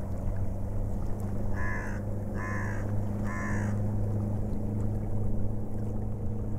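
A steady low motorboat engine drone. Three harsh, caw-like bird calls come in quick, even succession near the middle.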